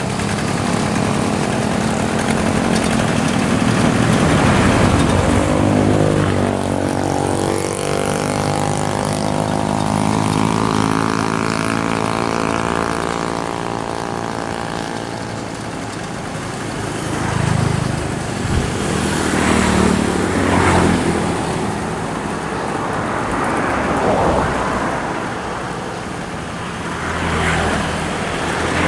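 Kubota RD85DI single-cylinder diesel engine of a Quick G1000 hand tractor running, its speed rising and falling several times.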